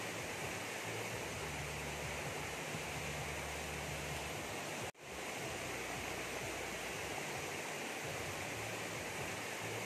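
Steady rushing noise with a faint low hum underneath. It drops out sharply for an instant about halfway through, then resumes.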